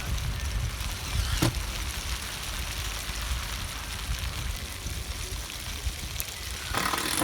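Steady rain hiss with wind buffeting the microphone in a low rumble. There is a sharp knock about a second and a half in, and a louder noisy burst near the end.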